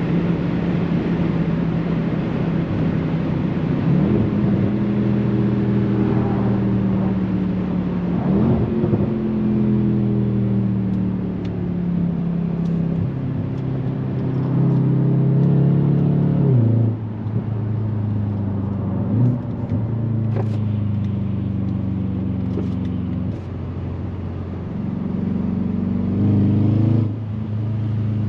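Jaguar XFR's supercharged 5.0 V8 running under way at fairly steady revs, its pitch jumping up or dropping abruptly several times as the automatic gearbox changes gear.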